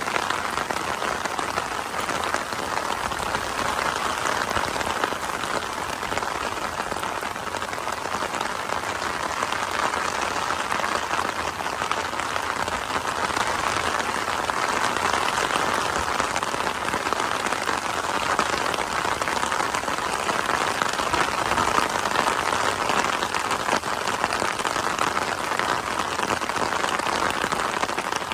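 Summer rain falling steadily: an even, dense patter of drops.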